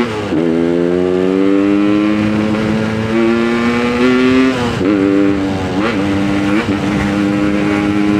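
Yamaha RX King's two-stroke single-cylinder engine pulling the bike along, heard from the rider's position. The note breaks briefly right at the start, as at a gear change, then holds nearly steady with a few short dips in the middle.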